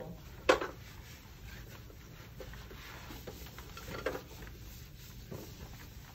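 Wipe rubbing over the plastic base and backrest of a dental operator's stool, a soft, steady rustle. A sharp knock comes about half a second in, with a few fainter knocks later.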